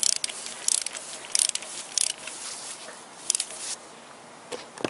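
Torque wrench ratchet head clicking in five short bursts as it is swung back and forth, running down the 10 mm bolt that holds a Toyota VVT-i engine's camshaft position sensor.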